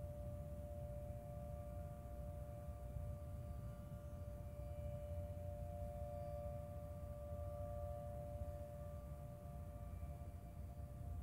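A siren holding a steady two-note tone after winding up, with a low rumble underneath.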